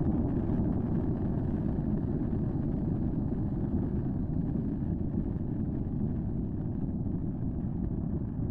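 Steady low rumbling roar from an erupting fissure volcano's vents, picked up by an outdoor microphone, even throughout with no separate bangs or pops.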